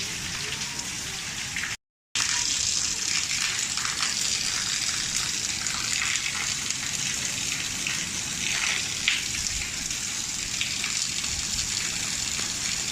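Heavy rain falling in a steady hiss, dropping out abruptly for a moment about two seconds in.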